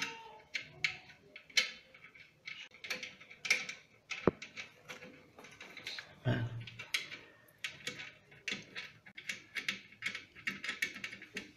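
Irregular clicking and scraping of a wing nut being unscrewed by hand from a long bolt under a ceramic toilet cistern. A sharper click comes about four seconds in and a duller knock a little after six seconds.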